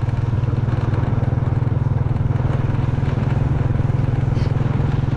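Motorcycle engine running steadily while riding along a road, a low drone with a fast even pulse.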